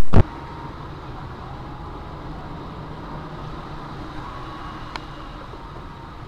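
A loud rushing noise cuts off abruptly at the very start, giving way to the steady low rumble of a car driving, as picked up by a dash cam. A single faint click comes about five seconds in.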